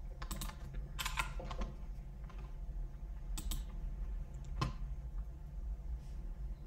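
Scattered computer keyboard keystrokes and clicks, a few taps at a time with pauses between, the sharpest about four and a half seconds in, over a faint low hum.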